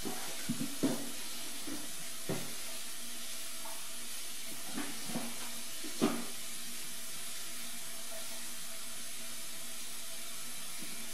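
Tap water running steadily into a full sink basin, with a few short splashes and knocks as a hand moves a submerged hard phone case around; the sharpest knock comes about six seconds in.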